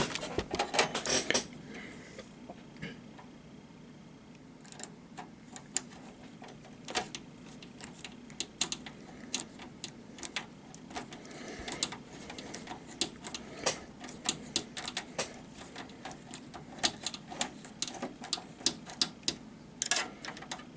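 Screwdriver driving a small screw into the metal bracket of a desktop PC case: irregular sharp metallic clicks and ticks, with a quieter stretch a couple of seconds in.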